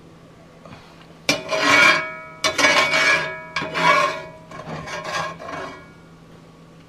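Metal spatula scraping the bottom of a cast iron skillet to gather leftover stuffing: four rasping strokes starting about a second in, with a metallic ring, the last ones softer.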